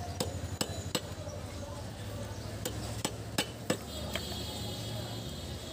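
Sharp knocks and clicks, about seven spread irregularly over the first four seconds, as chunks of a large catla are cut on a boti, a curved blade fixed upright on a wooden block. A steady low hum runs underneath.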